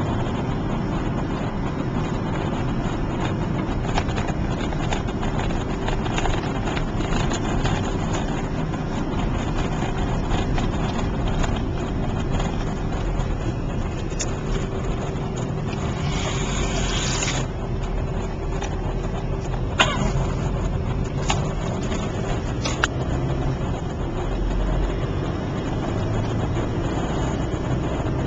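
Car engine and road noise heard from inside the cabin while driving: a steady rumble with a faint even hum. Partway through there is a brief rush of hiss, then a few sharp clicks.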